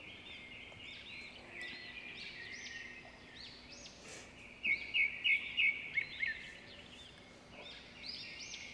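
Small birds chirping and twittering throughout, with a run of four louder, quick chirps about halfway through.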